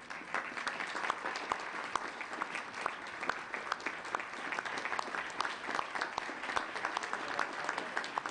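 Audience applauding, breaking out suddenly and keeping up steadily.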